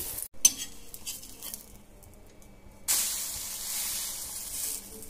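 Egg-dipped bread frying on a hot tawa. A sharp clack comes about half a second in, then a burst of sizzling from about three seconds in that dies down near the end.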